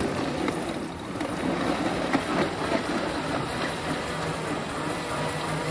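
Pedal-powered smoothie bike blender running. The bike's wheel spins the blender blades, which whir and rattle steadily through the fruit in the jar.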